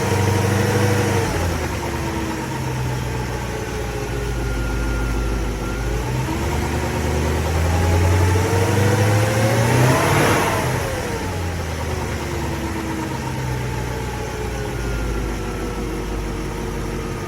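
BMW E38 engine revved and let fall back: the pitch drops near the start, climbs to a peak about ten seconds in, then drops back toward idle. The owner is listening for a very slight noise that comes as the revs fall, which he suspects is lifter tick.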